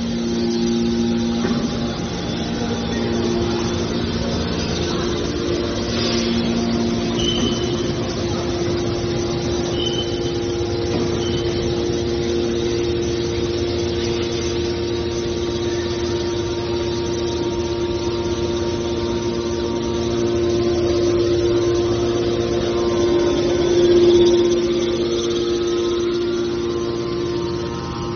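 Hydraulic aluminium baler machine running: a steady mechanical hum made of several held tones, which shift slightly a few times and swell briefly near the end.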